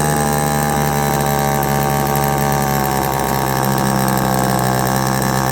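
Homelite EZ two-stroke chainsaw engine running steadily with no chain fitted. With the air filter refitted it runs a little rich, which the owner says toned it down.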